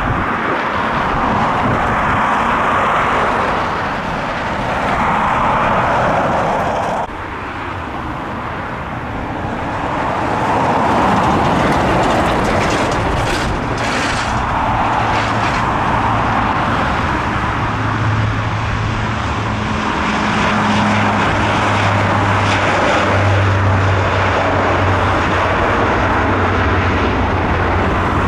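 Distant jet airliner running on the runway, a broad rushing roar that cuts off abruptly about seven seconds in. Then a Luxair Dash 8-Q400 turboprop's engines run on the runway: a broad rushing noise with a steady low propeller hum that grows stronger in the second half.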